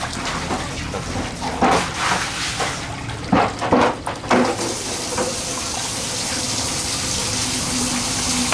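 Water running steadily, with several short, louder sudden sounds in the middle.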